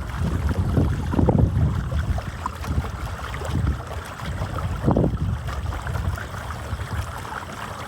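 Wind buffeting the microphone in uneven gusts, with the biggest surges about a second in and about five seconds in, over water rushing along a kayak's hull as it moves upstream.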